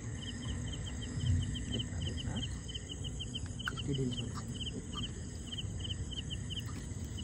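Night insects chirping in a quick, steady, regular rhythm, over low rustling and handling noise.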